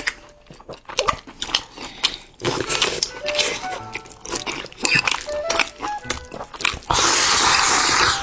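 Close-miked eating: wet chewing and lip-smacking clicks as sausage is bitten and chewed. Near the end, a loud slurp lasting over a second as noodles are sucked in from a bowl held to the mouth.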